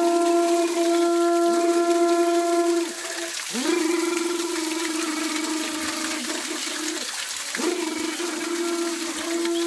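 Waterfall water splashing over heads and shoulders, under a long held note at one steady pitch. The note breaks off twice, about three and seven seconds in, each time sliding up into the same pitch again.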